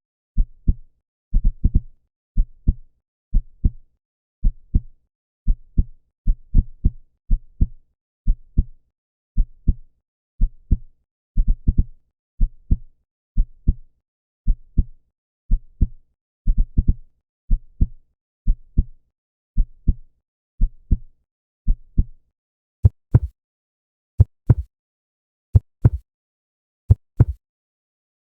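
Human heartbeat: a steady run of low, paired lub-dub thumps. About 22 seconds in, the beats come further apart, roughly a second and a half between them, and sound sharper.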